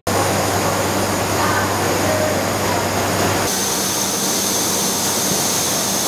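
Factory machinery running: a loud, steady mechanical din with a low hum. A thin high whine joins about three and a half seconds in.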